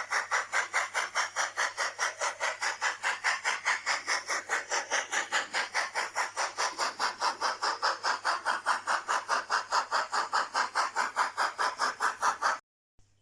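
Steam-locomotive chuffing from the digital sound decoder of an N-gauge Fleischmann BR 80 model, played through its small onboard loudspeaker. The chuffs come as a steady rapid beat of about six a second and cut off abruptly near the end.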